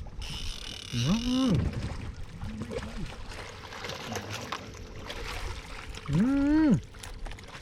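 Two short wordless vocal sounds, each rising, holding and then falling in pitch, the second one near the end louder, over a steady low background noise.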